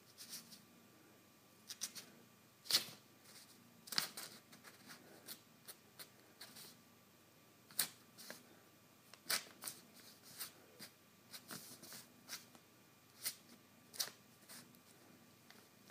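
A kitten's paws and claws batting and scraping at loose sheets of printer paper, the paper rustling and crackling in short, irregular scratches, a dozen or more, the loudest about three and four seconds in.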